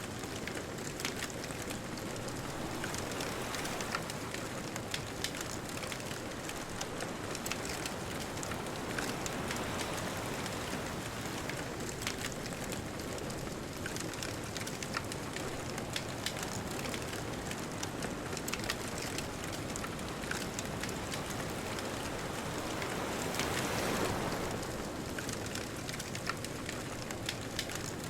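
Bonfire crackling and popping with frequent sharp snaps, over a steady rush of ocean waves; the rush swells briefly a few seconds before the end as a wave comes in.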